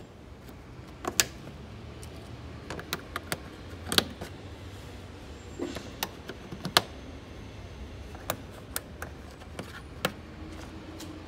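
Irregular sharp clicks and clinks of hand tools and metal parts being handled: about eighteen short knocks scattered through the stretch, the loudest about a second in, about four seconds in and near seven seconds. Underneath is a low steady hum.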